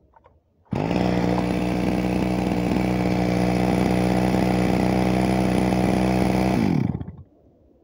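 Stihl MS 361 single-cylinder two-stroke chainsaw engine catching abruptly about a second in and running at a steady, slightly too fast idle ("um pouquinho disparada"), then shut off near the end and winding down. The carburetor needles have just been set back to the factory opening and the idle is not yet adjusted.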